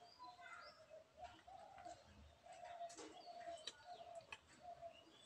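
Faint bird calls: a dove cooing in a run of short, low, steady notes, with small birds chirping higher up and a few soft clicks.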